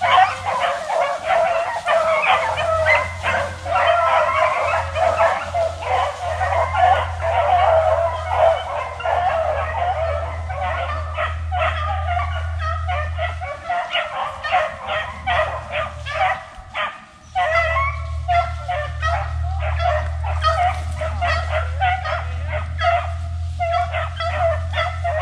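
A pack of beagles yipping and baying without pause while running a rabbit, many dogs' voices overlapping. Underneath is a steady low rumble that drops out for a few seconds midway.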